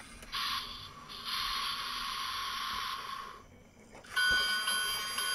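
BRIO battery-powered toy train in a BRIO toy train wash: a rough hissing wash sound for about three seconds, then after a short gap a steady high whine with several fixed tones about four seconds in.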